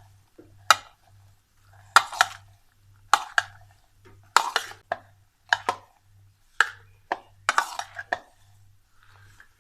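A spoon knocking and scraping against a mixing bowl as a macaroni salad is tossed with its dressing, in short irregular strokes, often in pairs, about once a second.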